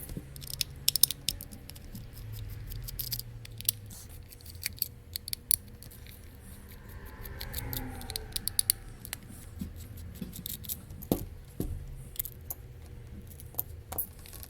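Irregular sharp clicks and light clatter of small tools and plastic parts being handled while a Bluetooth speaker's casing is pried apart, over a low steady hum.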